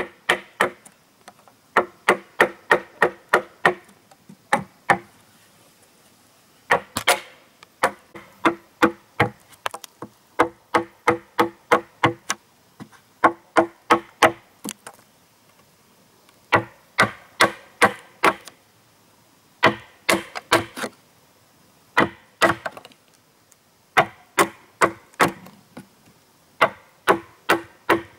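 A hand tool striking wood again and again, about three or four blows a second in runs of several, with pauses of a second or two between runs. Each blow gives a short ringing knock.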